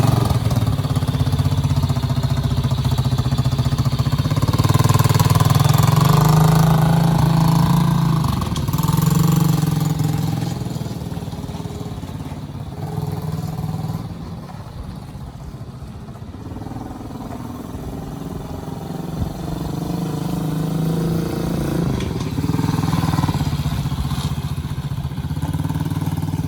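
A 125cc ATV engine running, its engine speed rising and falling. It is loudest over the first ten seconds, drops lower and quieter in the middle, and picks up again after about twenty seconds.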